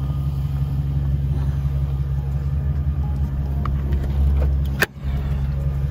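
BMW 760Li's V12 idling steadily with a low rumble through its custom exhaust. A single sharp click comes near the end, and the sound cuts out for an instant after it.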